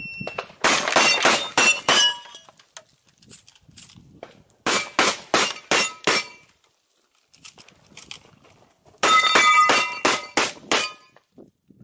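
Three rapid strings of shots from a Benelli M2 semi-automatic shotgun, each shot with a short metallic ring from a steel plate target being hit. The strings come about a second in, around five seconds in and about nine seconds in, with pauses between them for reloading.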